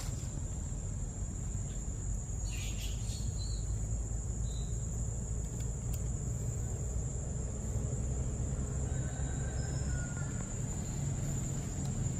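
A steady high insect drone over a constant low rumble of wind on the microphone, with a few faint short chirps.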